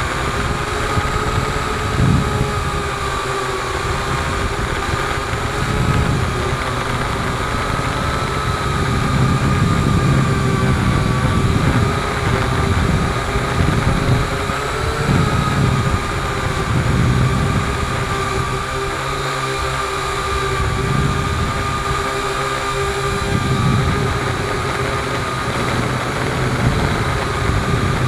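Small multirotor drone's electric motors and propellers whining steadily, recorded by the drone's own camera, with the pitch wavering slightly as it holds and drifts; an uneven low rumble of wind or prop wash buffets the microphone underneath.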